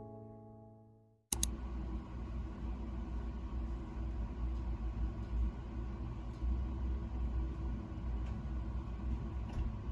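The last tones of mallet-percussion music fade out over the first second. About a second in, a steady low background rumble starts abruptly and continues.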